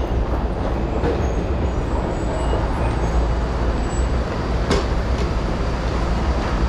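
Steady low rumble of an underground metro platform, with Marunouchi Line trains standing at the platforms. There is one sharp click about two-thirds of the way in.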